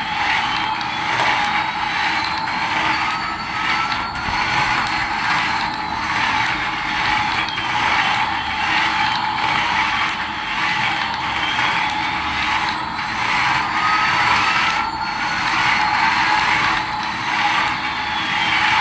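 Battery-powered toy Airbus A380 driving across a tiled floor: its small plastic gear motor and wheels whir and clatter steadily. A faint tone rises and falls twice over it.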